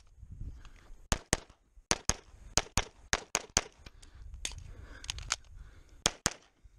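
CZ SP-01 Shadow 9mm pistol firing fast, mostly in quick pairs: about fifteen shots, starting about a second in.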